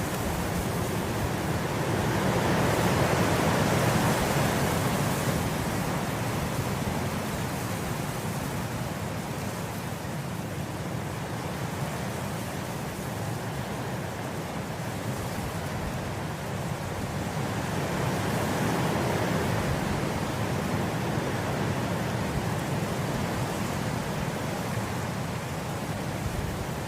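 Gentle wind blowing through grass: a steady rushing that swells twice, a few seconds in and again about two-thirds of the way through.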